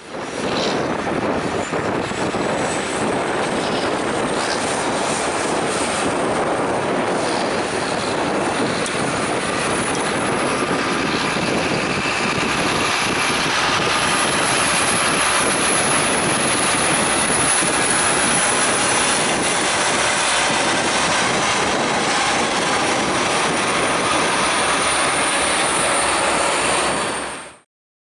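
Quadcopter drone's propellers running steadily in flight, a whirring with a thin high whine that slowly climbs and then eases back down.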